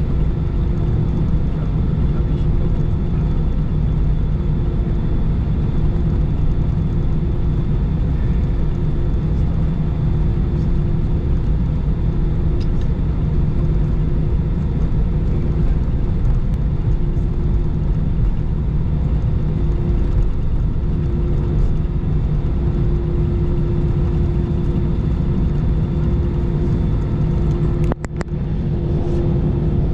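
Cabin noise of an Airbus A320 taxiing: a steady low rumble from the engines at taxi power and the wheels rolling on the taxiway, with a steady hum over it. A brief click near the end.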